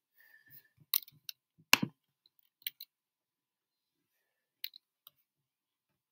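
A handful of separate sharp clicks of a computer mouse button, spread a second or so apart, the strongest about two seconds in.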